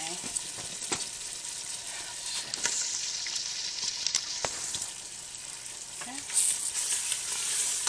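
Chopped vegetables sizzling in a hot flour-and-oil roux while being stirred, with scattered clicks and scrapes of the stirring utensil against the pot.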